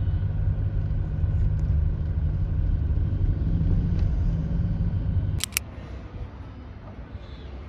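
Steady low road rumble and engine hum inside a moving car's cabin. A little over five seconds in it cuts off with a couple of clicks to a quieter open-air background hum.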